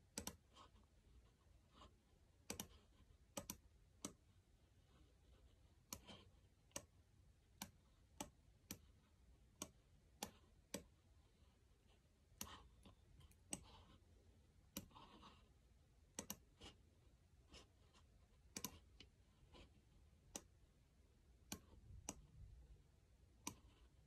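Quiet, sharp single clicks from a computer's pointing device, about one a second at an irregular pace and now and then in quick pairs, as a 3D CAD model is rotated and edited.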